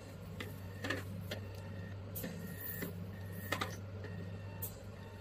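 Rotating-roller vacuum body handle of a VelaShape-type body-contouring machine running on skin: a steady low hum with irregular sharp clicks about once a second.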